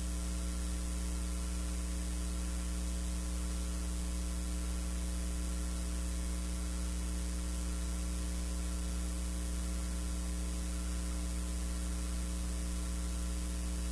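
Steady electrical mains hum with a buzzy stack of overtones at an even level, with no game sounds or voices above it.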